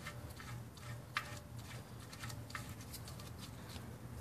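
Faint, scattered light clicks of the oil drain plug being put back into the oil pan by hand, over a steady low hum.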